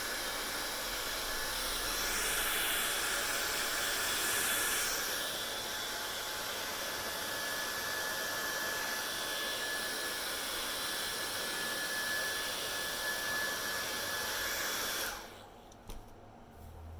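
Hair dryer blowing with a steady rush and a faint high whine, briefly brighter and louder a couple of seconds in. It is switched off about 15 seconds in and winds down quickly, followed by a single click.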